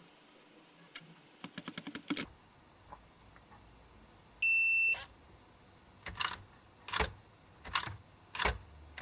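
Homegician HP1 electronic fingerprint door lock being operated: a short high beep, a quick run of clicks, then about halfway a half-second steady beep. After it come sharp taps about every three-quarters of a second.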